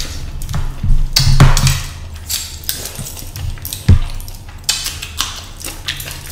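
Close-up sounds of eating by hand: wet chewing and lip smacks, with fingers squishing and mixing rice and fish curry on a plate, in a run of short, sharp, irregular sounds.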